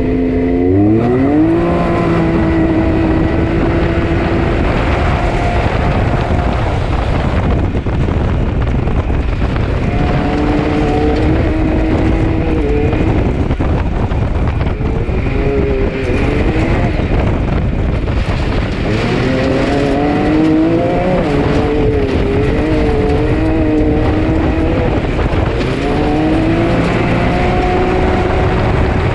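Can-Am side-by-side's engine, heard from on board while driving a gravel track: its note climbs steeply in the first couple of seconds, holds, then eases off and rises again several times as the throttle comes and goes, over a steady rushing noise.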